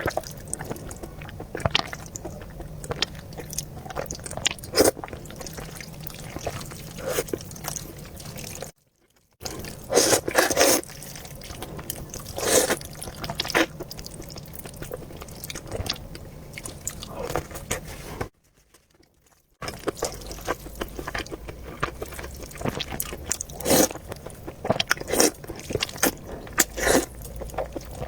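Eating noodles and meatballs: irregular chewing and biting mouth sounds with short wet clicks and smacks, a few louder ones in the middle. The sound cuts out to silence twice, briefly.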